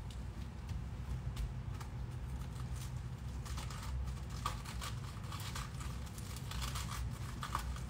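Crisp iceberg lettuce leaves being pulled and torn apart by gloved hands: a run of small crackles and snaps, thickest in the second half, over a steady low hum.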